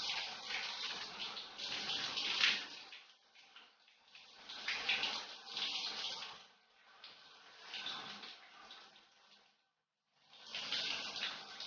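Shower spray running and splashing on a person and the tiled walls, swelling and easing every couple of seconds as the spray moves. It cuts out completely for about half a second near the end.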